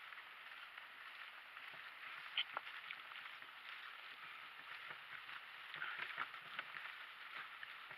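Donkey-drawn cart on the move over an off-road track: a steady crunching rustle of the wheels, with scattered knocks and clicks from hooves and cart. The sharpest knock comes about two and a half seconds in, and there is a cluster around six seconds.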